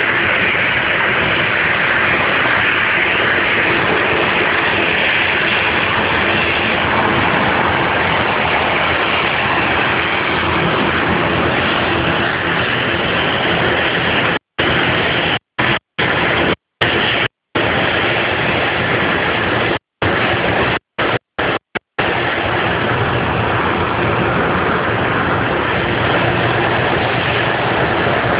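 Boeing 737-800's CFM56-7B turbofan engines running at taxi power as the jet taxis past: a loud, steady rush of noise. In the middle the sound cuts out completely several times for a moment.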